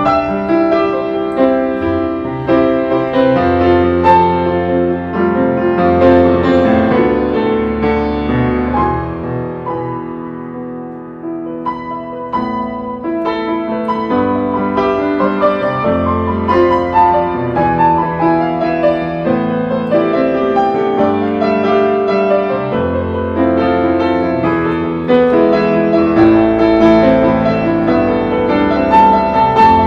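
Background piano music, dipping quieter about ten seconds in before building back up.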